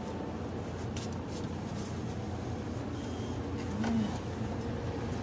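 Steady rumble of a moving public-transport vehicle heard from inside, with a few light clicks and rattles.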